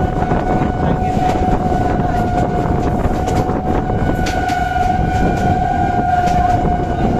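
A train running at speed: a loud, steady rumble of wheels on rails with occasional clicks, and a long, steady high tone held throughout.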